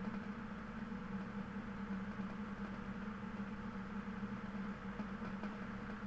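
Steady, even low hum with no changes or separate events.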